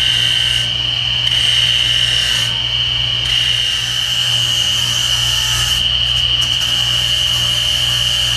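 Bench grinder running with a steady hum and high whine while the teeth of a brass-brazed cast iron gear are held against its wheel to dress off nicks and burrs. This gives a rasping hiss that comes and goes several times, mostly in the first two-thirds.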